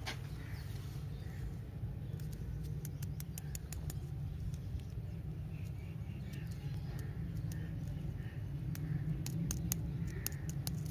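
Plastic lollipop wrapper crinkling and crackling in fingers: two spells of small sharp clicks, about two seconds in and again near the end. Under it runs a steady low hum.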